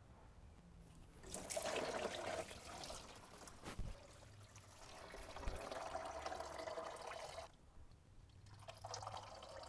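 Engine coolant draining in a stream from the open lower radiator hose outlet on the engine block and splashing into a drain pan; it starts about a second in, with a single knock just before four seconds and a brief lull near eight seconds. This is the draining of coolant from both the engine block and the radiator.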